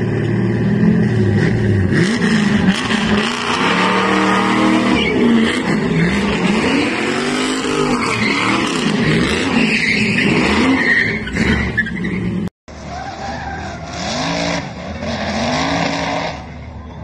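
Pickup truck drifting: the engine revs up and down over and over while the rear tyres squeal and skid through donuts. The sound cuts out abruptly about twelve seconds in, and another pickup's revving engine and squealing tyres follow, quieter.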